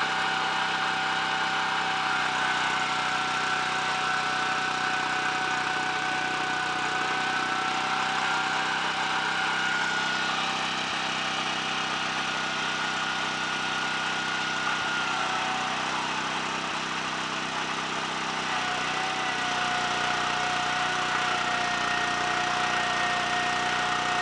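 Small Honda stationary engine running steadily, driving a motorcycle front wheel at speed while its brake shoes, coated in fine grinding paste, rub the high spot of an out-of-round brake drum to lap it true. Under the engine there is a high whine that sags slightly in pitch a few times.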